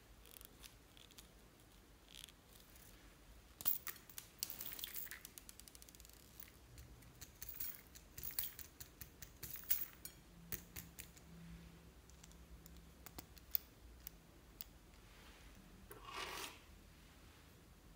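Faint clicks, taps and scratches as a pen-shaped tool works among glitter and small decorations in a glass bowl of white glue, busiest in the first half. A short soft rustle comes near the end.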